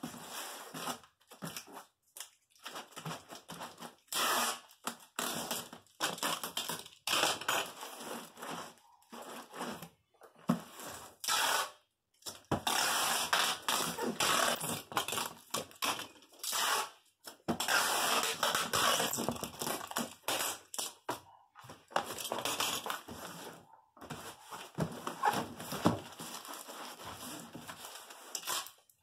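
Clear plastic packing tape being pulled off the roll and pressed and rubbed down onto a cardboard box, in repeated noisy bursts with short pauses between strips.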